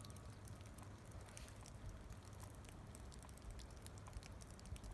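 Faint outdoor ambience, close to silence: a low steady rumble of wind on the microphone, with scattered faint ticks.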